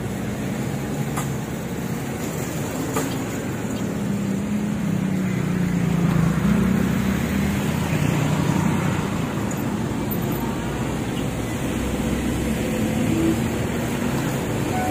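Road traffic at a busy junction: the engines of trucks and cars running as they idle and pass, a low rumble that grows louder for a few seconds in the middle.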